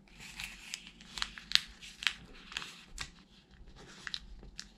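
Origami paper being folded and creased by hand, giving irregular crisp crinkles and sharp rustles.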